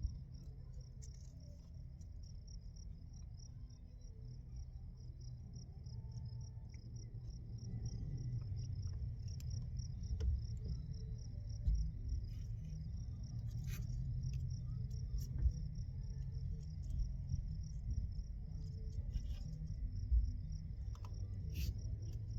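Crickets chirping in a steady, fast trill, over a low rumble. A few sharp clicks come from a wiring connector and tools being handled.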